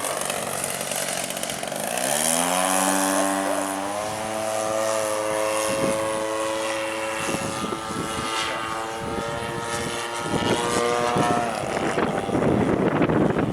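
Radio-controlled model airplane's motor and propeller, a pitched drone that rises in pitch about two seconds in, holds steady, then drops away near the end. Wind noise on the microphone comes before and after it.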